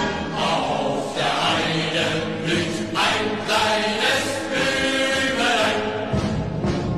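Choral chanting music with many voices singing together; a deep drum-like low sound comes in about six seconds in.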